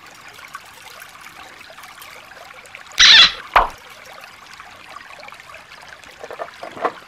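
Shallow water trickling over stones, steady and faint. About three seconds in, a brief loud burst of noise cuts in, followed at once by a short tone falling in pitch.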